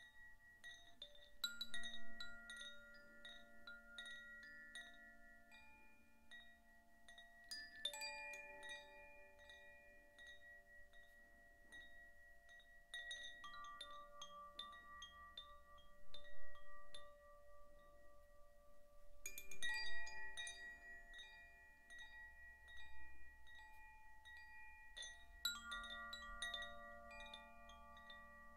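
Zaphir 'Sufi' chime set swinging by hand through its dangling disc, its clapper striking inside the tube. Clusters of soft metallic strikes come about every five or six seconds, with lighter taps between, and several tones ring on and overlap.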